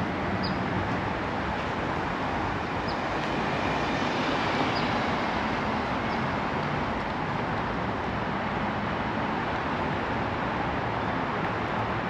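BMW Z4 sDrive30i driving at a steady speed: an even road and tyre noise with a low engine hum underneath, neither rising nor falling.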